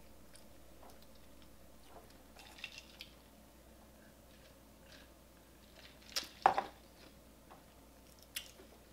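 Quiet eating of crab legs: soft chewing with small clicks and crackles of shell being picked apart. A louder knock comes about six seconds in.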